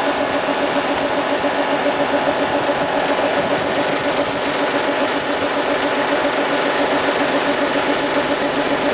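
An engine idling steadily with a rapid, even beat.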